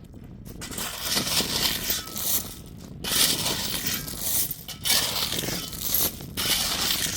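Small stones and gravel crunching and clinking in repeated gritty bursts every second or two, as pebbles are poured or scooped.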